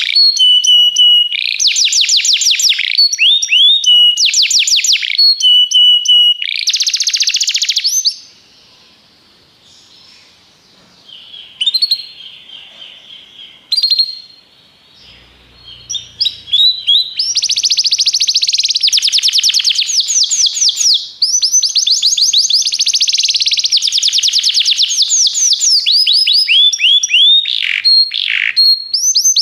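Domestic canary singing: fast trills of rapidly repeated notes, broken by short steady whistled tones. About eight seconds in it falls mostly quiet for several seconds, with a few scattered soft notes, then resumes with long unbroken trills.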